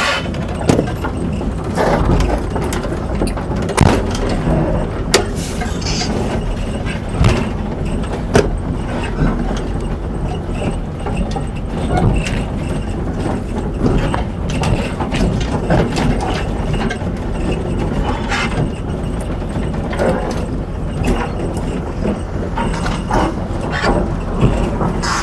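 Komatsu hydraulic excavator's diesel engine running steadily, with scattered short knocks and clanks throughout.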